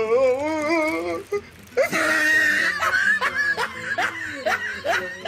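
A woman's wordless voice: a drawn-out wavering wail, then laughter in a run of short falling notes.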